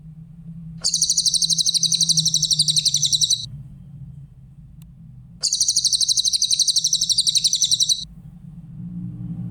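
Cililin songbird singing two bursts of fast, evenly repeated high trilling notes, each about two and a half seconds long, the first about a second in and the second about halfway through, over a steady low hum.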